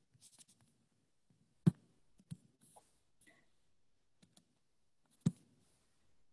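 Clicking at a computer as presentation slides are advanced. Two sharp clicks come about three and a half seconds apart, with several fainter clicks and taps around them.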